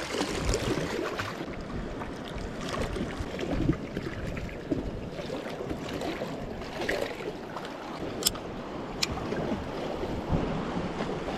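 Sea washing and surging against a rocky shoreline, with wind buffeting the microphone, and two sharp clicks near the end, about a second apart.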